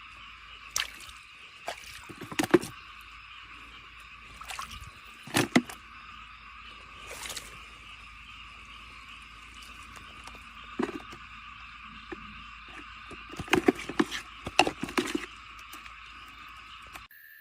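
Water and mud splashing and sloshing in clusters of short, sharp strokes, as when working by hand at an eel hole in a flooded field, over a steady high-pitched background chorus.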